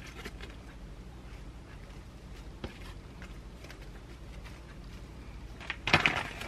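Fresh leaf lettuce rustling and crinkling faintly as the leaves are pressed down by hand onto a sandwich, with a single light tap a little before the middle. Near the end comes a much louder burst of crackling and clatter from handling something on the counter.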